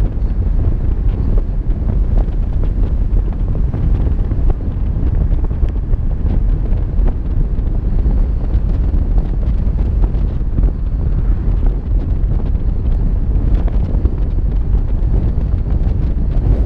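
Steady wind noise rumbling on the microphone of a camera mounted on a moving vehicle, a constant low rumble with the vehicle's road noise underneath.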